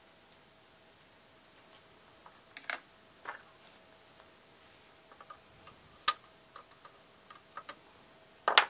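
Scattered small clicks and taps of hand tools and small electronic parts being handled on a workbench, with one sharp click about six seconds in and a quick cluster of clicks near the end. A faint steady tone sits underneath.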